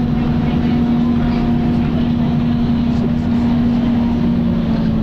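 Volvo B10BLE bus running with its very loud cooling fan on, a steady drone with a strong constant hum and rumble underneath; the pitch drops slightly near the end.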